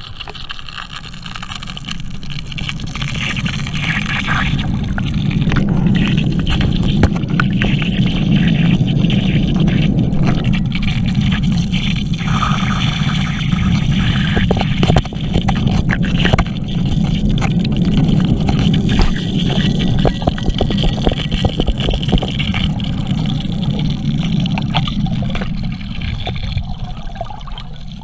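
Gold dredge working underwater: the dredge's motor and pump come through the water as a steady, muffled low drone with a rushing water noise over it. Small stones click and knock throughout. The sound builds over the first few seconds, then holds.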